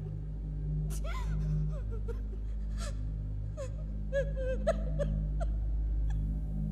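A young woman crying in a string of short sobs and gasps, over a low, steady music drone.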